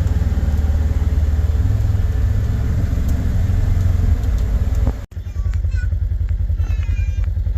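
Vehicle engine running with a heavy low rumble. About five seconds in the sound cuts to a steadier, evenly pulsing engine note, with a few short high-pitched sounds over it.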